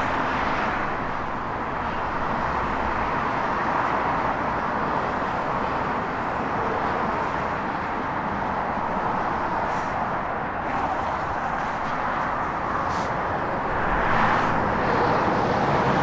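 Steady rush of road traffic: cars passing on a busy road, a continuous wash of tyre and engine noise that swells slightly near the end.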